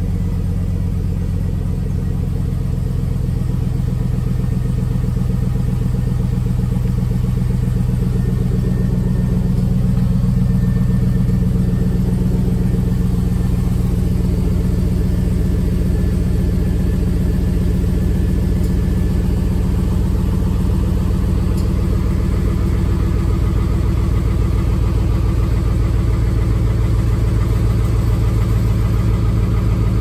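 Chevrolet Tahoe's V8 engine idling steadily just after being started, heard from beneath the truck by the exhaust pipe. The pipe's hole has been patched with FiberFix heat wrap, and no leak is seen.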